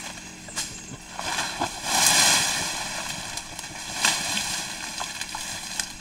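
Gorilla feeding in dense vegetation: sharp snaps of stems and a rustling swell of leaves and grass being pulled and stripped, loudest about two seconds in.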